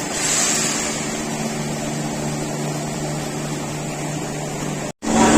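Steady machine hum with a broad hiss, holding level, that cuts off suddenly near the end.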